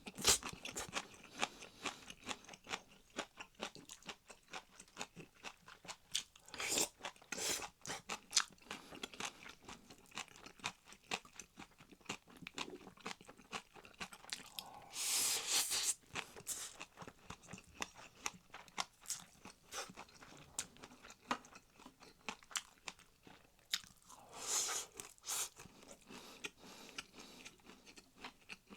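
A person chewing food with crunchy, wet clicks, steady and close up. The food is Korean side dishes such as dried-radish squid jeotgal and seasoned spinach. Three louder sounds of about a second each come about a quarter, half and most of the way through.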